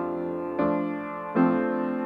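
Slow instrumental piano music: sustained chords, a new one struck about every three-quarters of a second.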